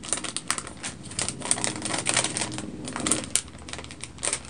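Thin clear plastic packaging bag crinkling and crackling as it is handled and pulled open, a rapid, irregular run of small clicks and crackles.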